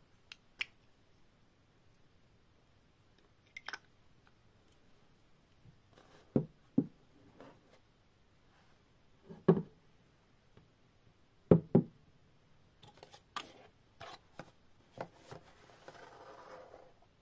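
A glass perfume bottle and cardboard perfume boxes are handled and set down on a tabletop. The sound is scattered knocks and taps, the loudest coming in pairs about six and a half and eleven and a half seconds in, and a brief scraping rustle near the end.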